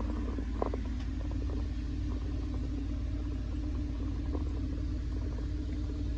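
Steady low background hum and rumble with one constant tone in it, with a few faint light clicks and taps scattered through.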